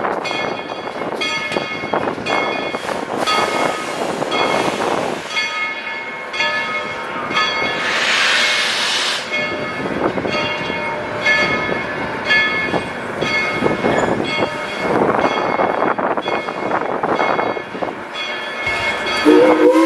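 Steam locomotive bell ringing in steady, repeated strokes over the locomotive's exhaust chuffs, with a loud burst of steam hiss about eight seconds in.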